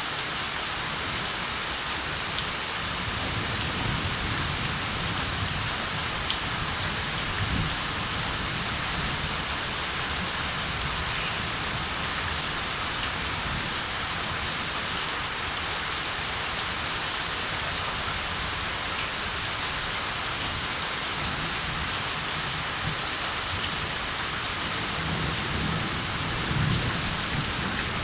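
Steady rain falling on surfaces, with low rumbles of distant thunder that swell a few seconds in and again more strongly near the end.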